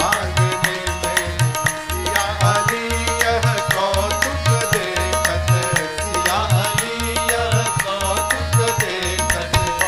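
Instrumental devotional bhajan music: a drum rhythm with a deep beat about once a second under a sustained melody line.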